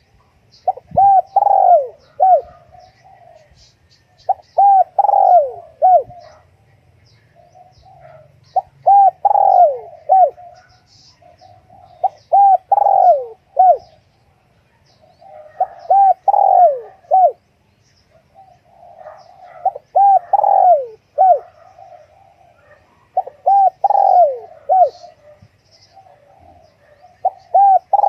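Spotted dove cooing: the same phrase of several short, arched coo notes over and over, about every four seconds.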